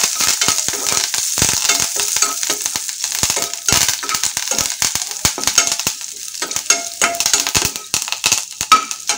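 Garlic and curry leaves sizzling in hot ghee with mustard seeds, an Indian tempering, the hiss dotted with many sharp crackles and spatters. A perforated steel spatula stirs and knocks against the aluminium kadai. The sizzle eases a little in the second half.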